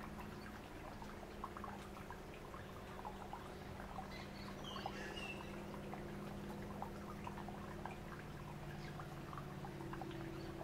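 Paper wasps (Polistes) fanning their wings on the nest: a steady low buzz of several overlapping hums. Faint scattered ticks run through it, and a short high chirp comes near the middle.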